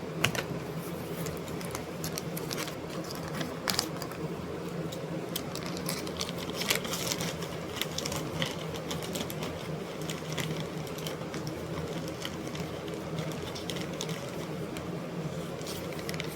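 Steady machine hum with scattered, irregular light clicks and taps over it, busiest a few seconds in.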